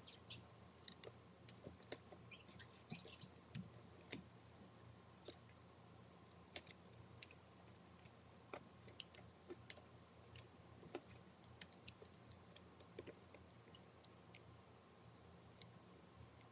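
Faint, irregular small clicks and taps, scattered through, from hand tools working on the tablet's small parts, over a low steady hum.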